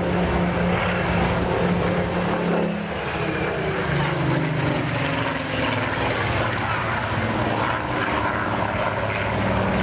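Spitfire PR19's Rolls-Royce Griffon 58 V12 piston engine in flight. It runs steadily, and its pitch drops about three seconds in.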